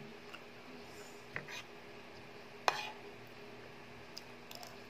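Spoon and fork scraping and clinking against a plate of rice while eating, with one sharp clink a little past halfway and a few light ticks near the end, over a faint steady hum.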